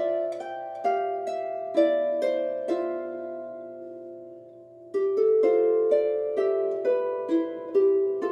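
Background music: a gentle melody of single notes that each ring and fade, dying away toward the middle and picking up again about five seconds in.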